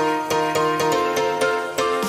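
Background music with a steady beat: bright plucked and keyboard-like notes in a regular rhythm.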